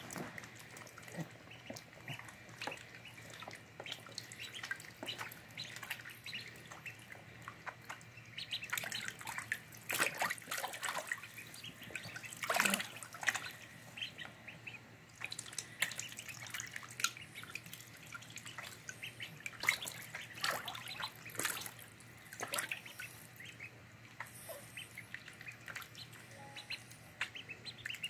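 Five-day-old ducklings peeping in many short, scattered calls while they paddle and splash in shallow water.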